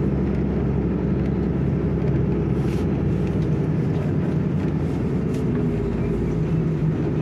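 Steady engine drone and road noise heard from inside a moving vehicle.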